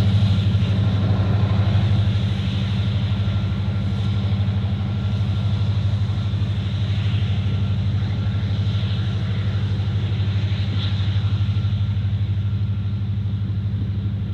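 EMD SD70ACe diesel-electric locomotive's two-stroke V16 diesel engine working under load as the coal train pulls away, a steady low throb.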